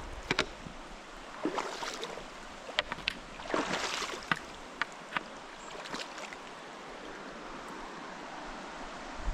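Irregular footsteps clicking and scraping on loose rock, over the steady rush of a river.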